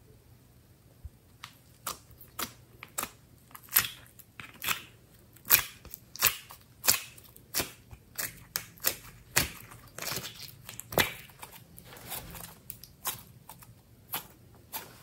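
Glossy slime being pulled from a plastic palette and squeezed by hand, giving a run of sharp wet clicks and pops, about one or two a second.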